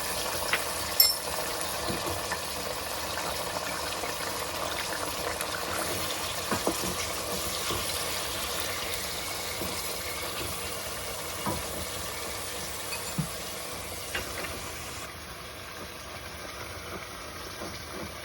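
Garlic sizzling steadily in hot olive oil in a stainless steel pan, with a few light clinks.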